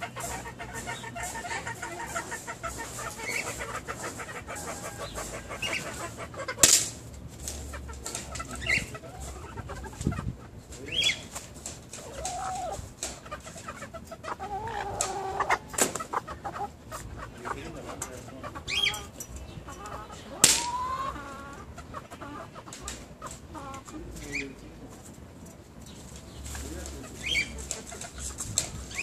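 Chickens clucking off and on, short calls scattered through the stretch, with a few sharp clicks or snaps, the loudest about seven, sixteen and twenty seconds in.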